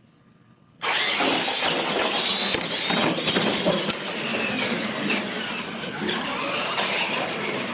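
Two electric RC monster trucks launch together about a second in and race flat out across a hard floor. Their motors whine and their tyres scrub loudly and steadily.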